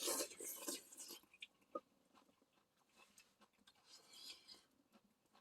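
Someone eating a mouthful of ramen noodles from stew: faint chewing and mouth noises, with a louder burst in the first second and scattered small clicks.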